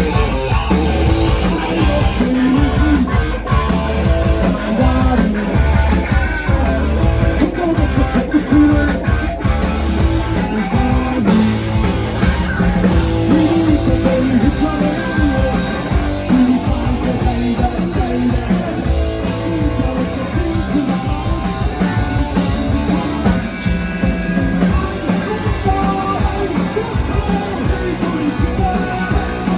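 A rock band playing live, with distorted electric guitars, bass and drums over a steady driving beat, and singing in places.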